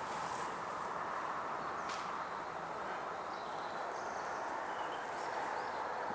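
Steady outdoor background hiss, with a few faint, brief bird chirps.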